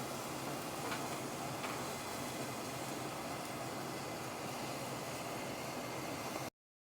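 Steady low hiss with a faint hum underneath, a couple of faint ticks about a second in. The sound cuts out abruptly for under a second near the end.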